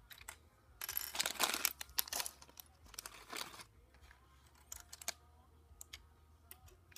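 Plastic packaging crinkling in two rustling bursts, followed by a few light clicks.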